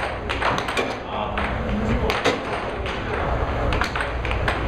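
Air hockey puck clacking sharply and irregularly off the players' mallets and the table rails in a fast rally, over the steady low hum of the air table's blower.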